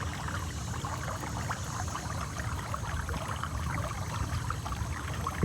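Water splashing and gurgling along a kayak's hull as an electric trolling motor pushes it upstream against the current, over a steady low rumble of wind on the microphone.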